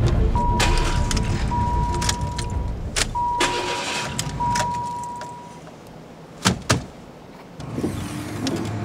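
Car being got into and readied: scattered clicks and rattles, and a steady electronic warning tone that sounds in four stretches with short gaps. A low rumble fades out by about halfway, and two sharp knocks come about six and a half seconds in.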